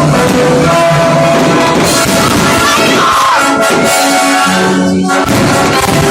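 Loud music playing, with sustained pitched notes that change every second or so.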